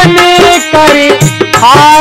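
Devotional kirtan bhajan music: a harmonium holding chords and a dholak drum keeping a steady beat, with a man singing a sliding melody line.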